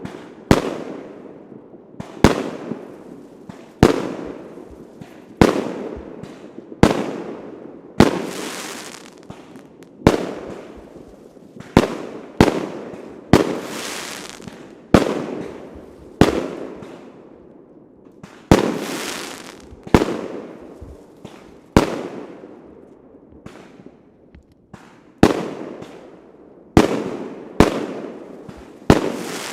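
Fireworks going off in a steady series: a sharp bang roughly every one to two seconds, each followed by a rolling echo that dies away, a few with a longer hissing tail.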